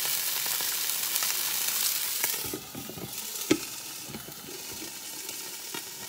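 Chicken breasts sizzling in oil in a frying pan, just flipped to cook the second side. The hiss drops in level about two and a half seconds in, and a few sharp knocks of utensils or cookware sound, the loudest about a second later.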